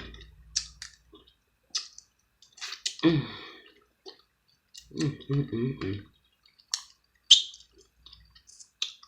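Eating sounds close to the microphone: wet mouth clicks and smacks while chewing crab meat, scattered and irregular, with two short hums of the voice, about three and five seconds in.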